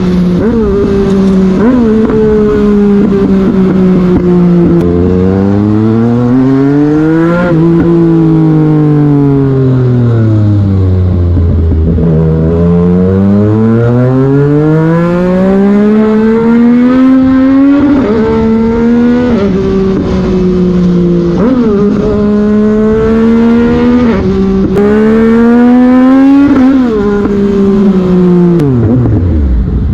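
A 2021 Yamaha MT-09's 889 cc inline three-cylinder engine under way. The revs climb and fall repeatedly as the bike accelerates and slows. In the second half there are several quick upshifts, each a short drop in pitch before the next climb, and near the end the revs fall away steeply as it slows.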